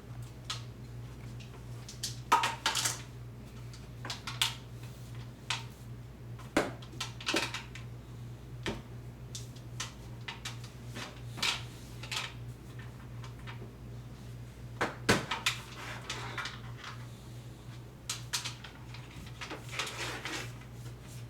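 Hard toys being handled, clattering and knocking irregularly over a steady low hum.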